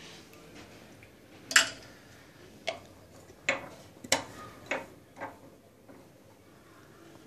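A series of six sharp clicks at uneven intervals, the first the loudest.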